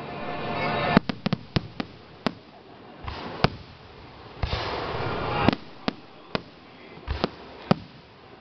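Aerial fireworks shells bursting: a series of sharp bangs and cracks, twice led by a hiss that swells up into a loud bang, about a second in and about five and a half seconds in.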